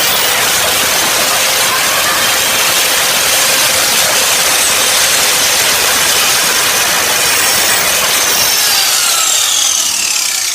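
Hyper Tough angle grinder's abrasive disc cutting into a hardened grade 8 steel bolt, a loud steady grinding hiss. Near the end the motor's whine falls in pitch and the sound begins to die away.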